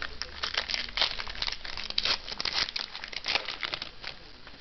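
Foil wrapper of a 2008 Score Select football card pack crinkling as it is torn open by hand: a dense run of sharp crackles that stops shortly before the end.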